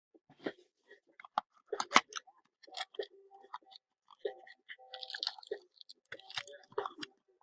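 Plastic wrap crinkling and packaging being handled as a sealed trading-card box is opened, in irregular crackles and sharp clicks.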